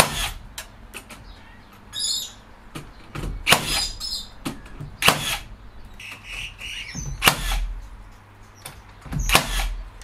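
HiKOKI 36V cordless metal connector nailer (NR3665DA) firing 65 mm nails through steel hurricane-tie brackets into timber. Five sharp shots, roughly every two seconds.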